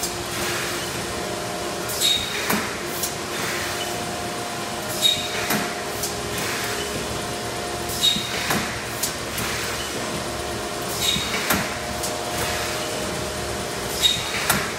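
Thermoforming machine running in production, forming plastic cups and cycling about once every three seconds. Each cycle brings a sharp clank with a brief ring, followed by a hiss of air, over a steady machine hum.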